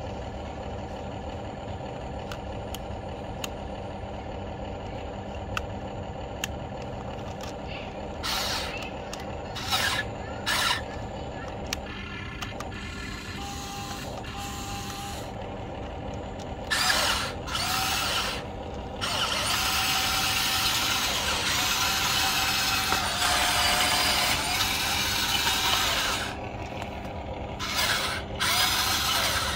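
Huina remote-control excavator running: a steady hum, with bursts of motor whirring as the boom, arm and bucket are worked. The longest and loudest burst comes past the middle.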